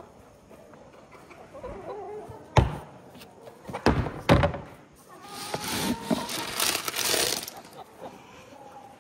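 Plastic lid of a trash-can feed bin being worked loose and knocking against the can, three sharp thunks in the middle, then a scoop digging into chicken feed pellets, a rattling rustle for about two seconds.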